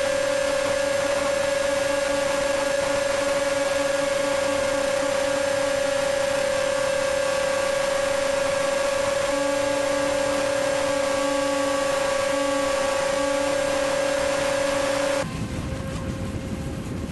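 RC speedboat motors heard through onboard cameras: a steady, unchanging high whine over the rush of water and spray, with a lower second tone coming and going. About fifteen seconds in it cuts off abruptly to a lower rush of wind and water.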